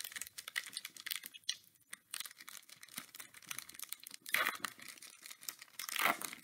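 Wrapper of a Donruss football card pack crinkling and tearing as it is ripped open by hand, a run of quick crackles with two louder bursts about four and six seconds in.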